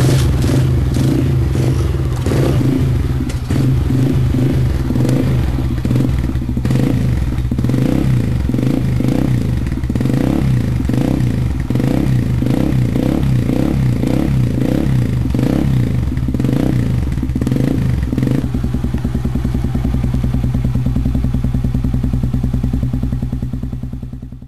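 Kawasaki KSR110's small single-cylinder four-stroke engine running through a newly fitted Nojima FASARM M titanium aftermarket muffler. For most of the time it swells and falls in short repeated throttle blips, then settles to a steady idle about 18 seconds in.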